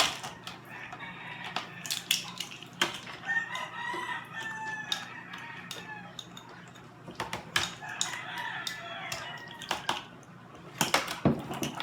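A rooster crowing twice, each crow lasting a couple of seconds, with scattered sharp clicks and knocks.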